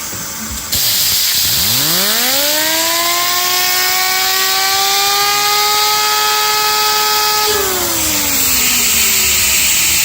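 Compressed air hissing from an air compressor nozzle onto a fidget spinner, which spins up with a whine that rises steeply, then holds high and creeps slowly higher. A few seconds before the end the whine falls away as the spinner slows, while the air hiss goes on.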